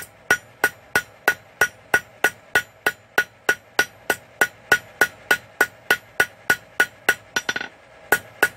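Blacksmith's hammer striking hot quarter-inch steel bar on the anvil in a steady rhythm of about three blows a second, each blow with a short ringing tone, drawing out a long taper on the end of the bar.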